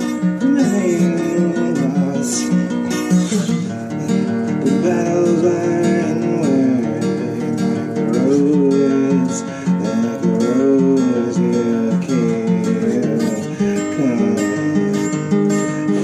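Acoustic guitar strummed steadily, with a voice singing a melody over it.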